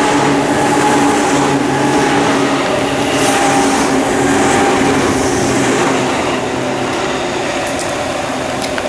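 Tobu 9000-series electric train passing, with steady motor and gear tones over the noise of wheels on rail, the tones fading in the last few seconds.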